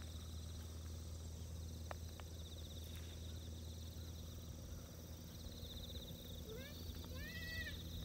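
Outdoor ambience: a steady low rumble of wind on the microphone and a faint pulsing insect chirr, with a few short high rising-and-falling calls from an animal or small child near the end.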